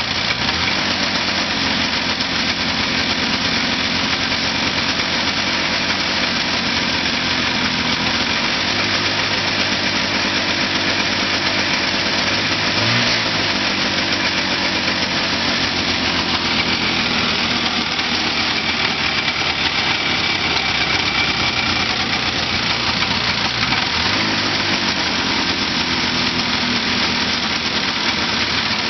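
1980 Arctic Cat Pantera snowmobile's two-stroke engine running steadily at idle, with the hood open; it has just been brought back to life after sitting for more than five years.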